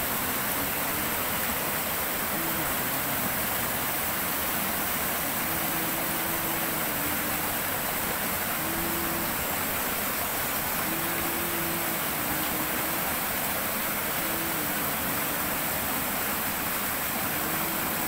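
Forest stream rushing steadily over rocks and small rapids, an even unbroken hiss.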